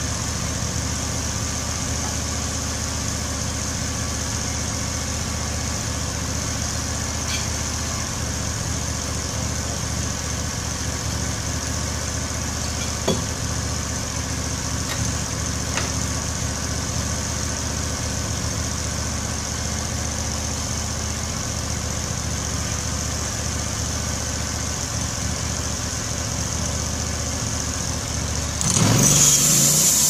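Norwood LumberMate LM29 portable sawmill's gasoline engine idling steadily, then revving up sharply about a second before the end.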